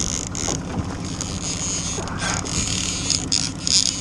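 60 hp outboard motor running steadily under way, a low even rumble, with short rattles and hissy bursts on top every so often.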